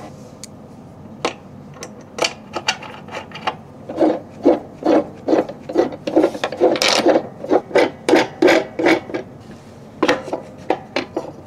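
A hex key turning a bolt to fasten an aluminium vise fixture to a CNC machine's spoilboard: a run of short scraping strokes, about two a second, with scattered clicks before them. A few sharp knocks near the end as a wood board is set into the vise.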